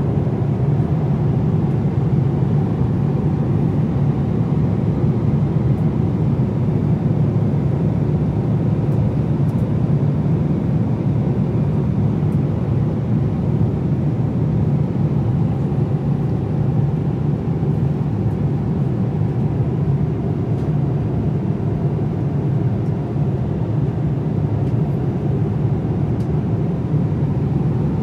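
Steady cabin noise inside a Boeing 787-9 airliner: an even rumble of engines and airflow, heaviest in the low range, unchanging throughout.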